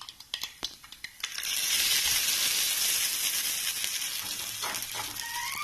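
Hot-oil tempering of cumin, mustard seeds and dry red chillies sizzling. A few sharp pops come first, then a loud hiss starts suddenly about a second and a half in and slowly fades.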